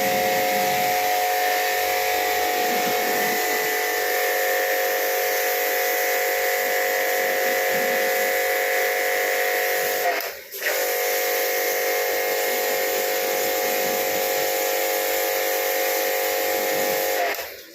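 Small electric pressure washer running, a steady motor hum with a hiss of water spray. It cuts out briefly about ten seconds in and again near the end.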